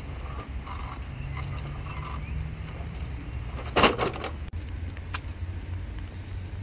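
A scale RC crawler tumbling off a wet wooden ramp: a loud clattering crash of its body on the boards, a few quick knocks just under four seconds in, over a low steady rumble.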